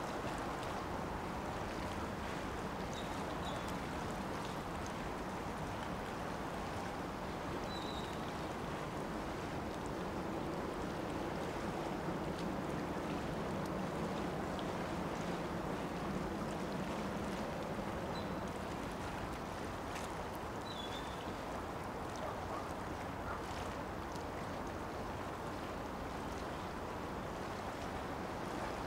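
Steady seaside ambience: the wash of water and wind. A low hum swells a little through the middle and fades again.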